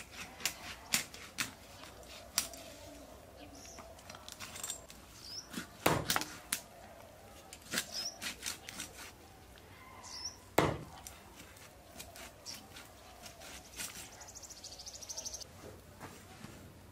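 Irregular sharp knocks and clicks, a few of them loud, with short bird chirps now and then and a brief high buzzing trill near the end.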